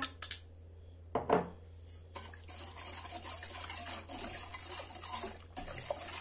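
Wire whisk beating milk, sugar, flour and starch in a stainless steel pot: a steady, quick swishing and scraping of the wires against the pot from about two seconds in. A few clinks of a glass against the pot come at the start, and a low electrical hum lies under it all.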